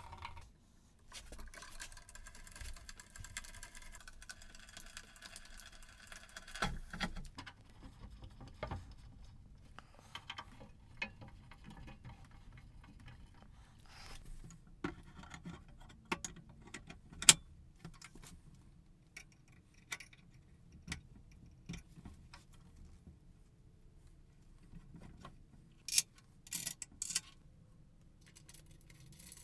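Pencil scratching on wood for a few seconds, then scattered clicks and taps of small metal hardware being handled, with one loud click about two-thirds of the way through and a short cluster of louder metallic clinks near the end.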